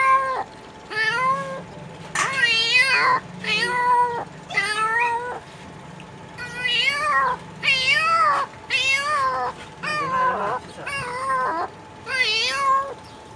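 A man imitating a cat with his voice: about a dozen meows in a row, each under a second long and bending up and then down in pitch, with short pauses between them.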